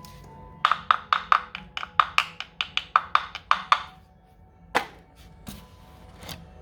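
Ceramic tile being tapped with a hard object in a quick run of about a dozen knocks, then three single knocks, each ringing briefly with a hollow tone, the sign of a tile that has come loose from its adhesive bed.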